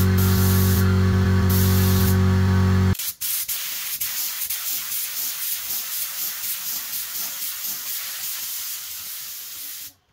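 Air spray gun hissing as it sprays finish onto a turned wooden vase. For the first three seconds a loud steady hum sits under the hiss. After a sudden change the hiss continues with a light regular pulse, eases slightly and stops abruptly near the end.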